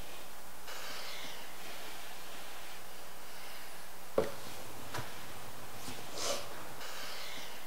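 Steady room-tone hiss, broken by a sharp click about four seconds in and a fainter one a second later, and a short breathy snort from a sleeping person near the end.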